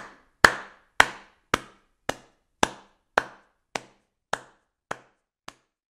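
A steady series of sharp knocks, a little under two a second, each dying away quickly and growing fainter toward the end, about ten in all.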